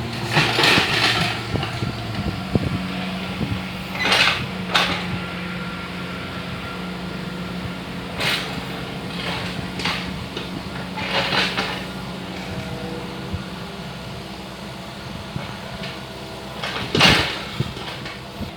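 Excavator's diesel engine running, its pitch stepping up about two and a half seconds in and then holding steady. Several short bursts of noise sound over it, the loudest near the end.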